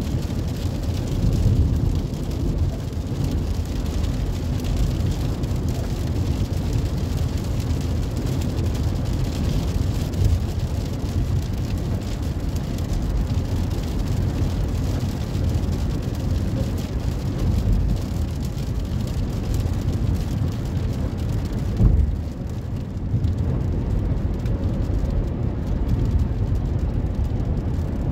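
Car cabin noise while driving on a wet highway: a steady low rumble of engine and tyres, with a hiss of rain and tyre spray. The hiss thins out after a brief thump about three quarters of the way through.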